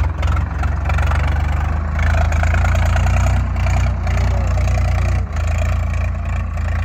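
Swaraj 744 XT tractor's three-cylinder diesel engine running steadily under load as the tractor drives up through loose sand, with a short dip in level about five seconds in.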